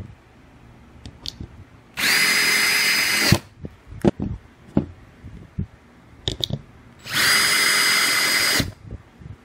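Cordless DeWalt drill/driver driving screws through a steel hinge into PVC board. Two runs of about a second and a half each, the motor's steady whine spinning up and winding down, with small clicks between them.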